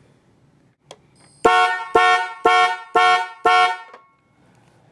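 12-volt car horns honking in five short blasts, about two a second, starting a second and a half in. They are switched on and off by a relay driven from the alarm clock's beeper output.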